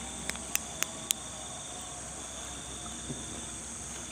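Steady chorus of crickets and other insects, with four short sharp clicks in the first second or so.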